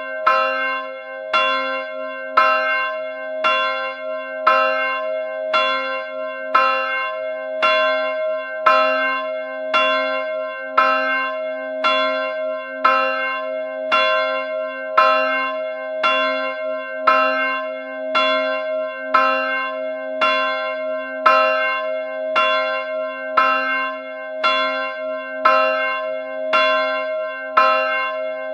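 A single church bell tolling steadily, struck about once a second at the same pitch, each stroke ringing on into the next.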